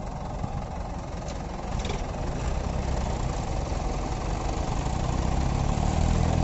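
Diesel tractor engine running at a steady idle, growing louder and heavier from about halfway through.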